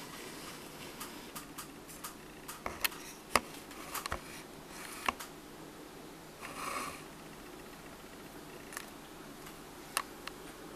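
A scatter of light clicks and taps, thickest and loudest in the first few seconds, with a short breathy hiss a little past the middle and a couple of single clicks near the end, over quiet room tone.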